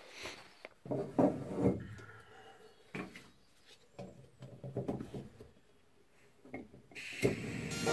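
Camp gear being handled on wooden boards: irregular knocks, clicks, scrapes and rustles as breakfast things are set out and sorted by hand.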